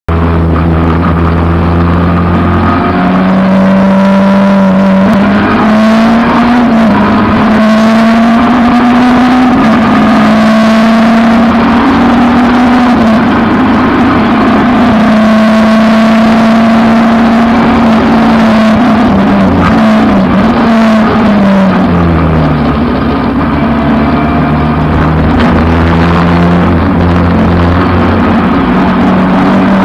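Peugeot 306 race car engine running loud at high revs. Its note is held mostly steady, rising and falling gently in places, with a dip in revs a little over two-thirds of the way through before it climbs back.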